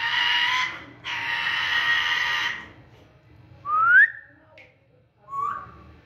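African grey parrot calling: two long, steady, even-pitched calls, then about three and a half seconds in a loud rising whistle, and a shorter whistle near the end.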